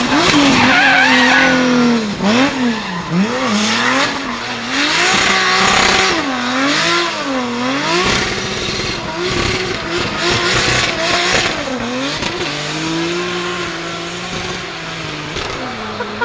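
Toyota GR Supra's swapped-in 2JZ straight-six revving up and down hard while it drifts in donuts, its pitch swinging about once a second, with the rear tyres spinning and screeching the whole time.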